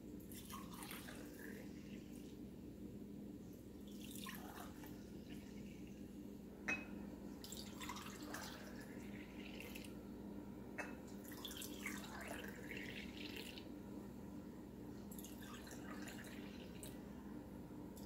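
Yogurt milk mixture poured from a glass bowl into small glass jars in several separate pours, a faint trickling and dripping as each jar fills. There are two short, light clicks, the louder about seven seconds in.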